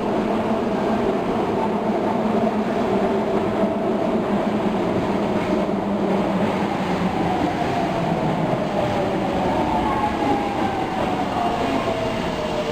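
Osaka Metro Tanimachi Line subway train pulling into a station platform and braking. Its running noise is steady and loud, and its motor whine slowly falls in pitch as it slows.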